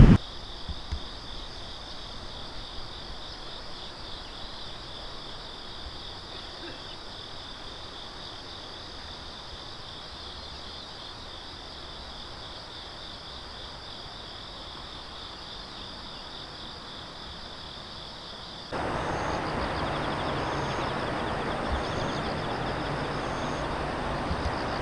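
Steady high, finely pulsing trill of insects over faint outdoor background. About 19 s in it gives way abruptly to louder, even outdoor noise, with a short high beep repeating about every second and a half.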